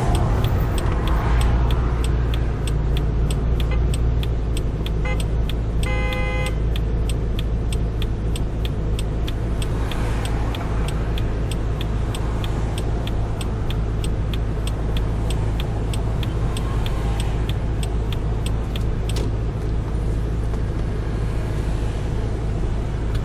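Car driving, heard from inside the cabin: a steady low engine and road rumble. Over it runs an even, fast ticking that stops near the end, and a short beep sounds about six seconds in.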